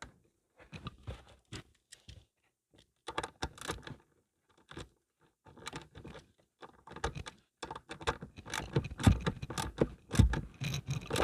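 Irregular clicks, scrapes and rustles of hands and small metal parts as a bare ground wire is fastened under a chassis ground bolt, busier toward the end.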